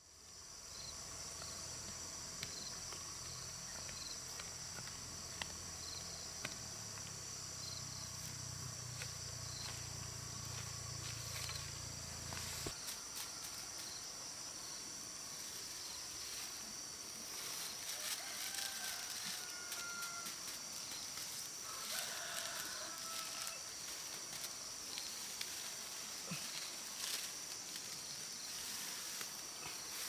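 Steady high-pitched trilling of crickets and other field insects. A low hum runs under it for the first dozen seconds and stops abruptly. In the second half come a few short calls and the soft rustle of rice straw being handled.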